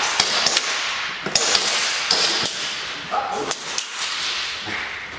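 Airsoft pistols firing: an irregular string of sharp snaps and cracks, echoing in a large bare warehouse hall.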